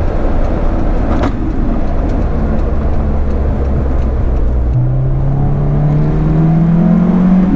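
Honda S2000's 2.2-litre four-cylinder engine and road noise while driving, with a brief click about a second in. About five seconds in the engine note comes up and rises steadily as the car accelerates through the gear.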